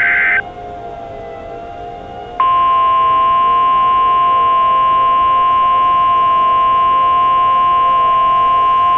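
The last burst of an Emergency Alert System SAME data header, a harsh digital screech, ends just after the start. After a two-second gap, a loud steady single-pitch alarm tone of about 1050 Hz (the NOAA Weather Radio warning alarm) starts and holds. A low wavering tone runs faintly underneath.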